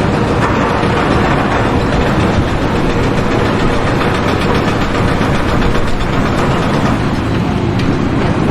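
A heavy engine running steadily and loudly at an even pace.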